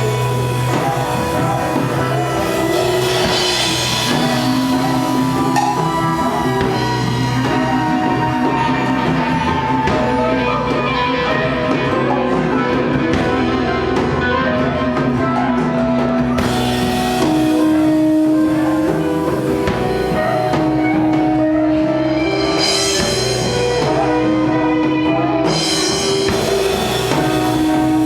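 Live psychedelic rock band playing an instrumental passage: sustained guitar lines over bass and drum kit, with no singing.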